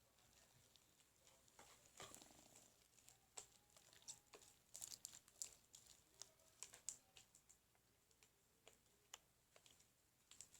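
Faint, irregular sticky clicks and squelches of homemade glue slime being worked, scattered through most of the stretch.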